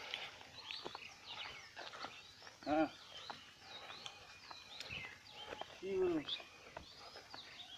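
Small birds chirping and twittering, faint and continuous, over scattered footsteps on grass. Two short voice-like calls stand out, one about three seconds in and one about six seconds in.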